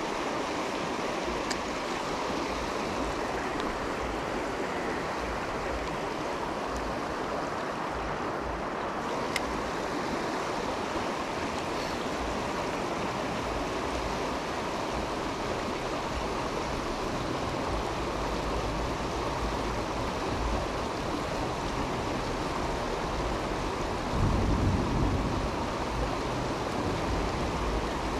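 River water rushing steadily over a rocky riffle, with a brief louder low rumble about 24 seconds in.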